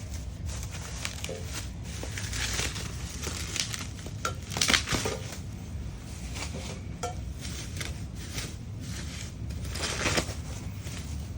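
Paper and packing material rustling and crinkling as items are handled and unwrapped from a box, with louder crumpling about halfway through and again near the end.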